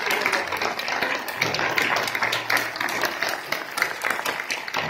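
Congregation applauding, a dense spatter of many hand claps. A low held tone comes in underneath about one and a half seconds in.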